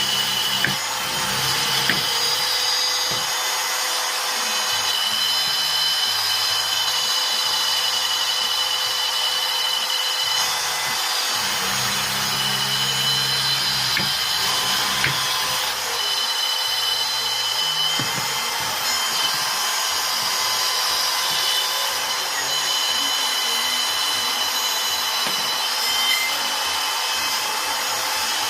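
Electric power tool running steadily on wood, a continuous whine with a rough working noise under it.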